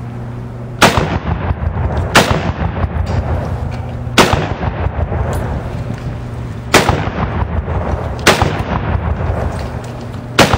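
Six shots from an M1 Garand semi-automatic rifle, each a sharp crack with a short echo trailing after it, fired one at a time about one and a half to two and a half seconds apart.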